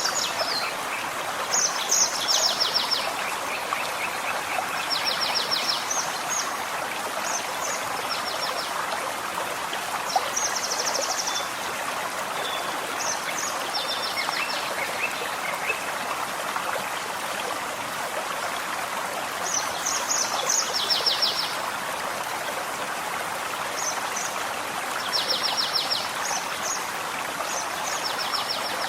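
Forest stream running steadily, with birds singing over it: short high phrases of a few sharp notes ending in a fast trill, repeated every few seconds.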